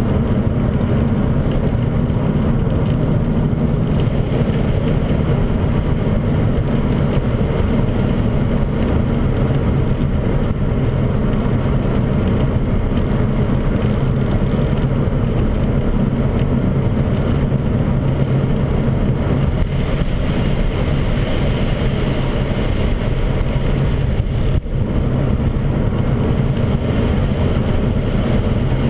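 In-cabin sound of a BMW 540's V8 cruising steadily on a wet road: a constant low engine drone mixed with road and tyre noise. The level dips briefly once near the end.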